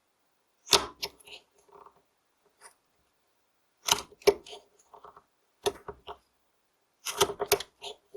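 Carving knife slicing into a basswood stick: four short clusters of crisp cuts, a second or two apart.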